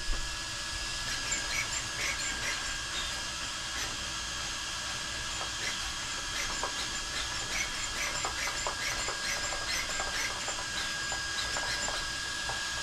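Traxxas XRT drivetrain worked by hand: light, irregular clicks and ticks from the mesh between the pinion and spur gears, with a faint steady high tone behind them. The owner takes the clunk for the spur and pinion meshing as the drivetrain is pulled.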